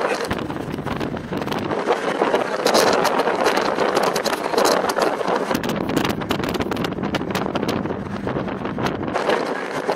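A vehicle on the move, with wind buffeting the microphone in a steady rush; a run of short knocks or rattles comes in the second half.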